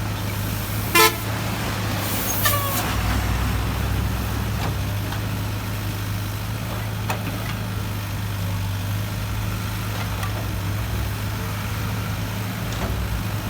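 Heavy diesel machinery running steadily with a low drone. A vehicle horn gives one short, loud toot about a second in, followed by a brief sound that falls in pitch.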